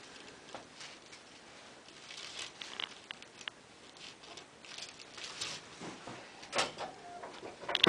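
Soft rustling and scattered light clicks from hands and a patient shifting on a chiropractic table. Near the end comes a sharp, loud crack: a neck joint popping under a chiropractic adjustment.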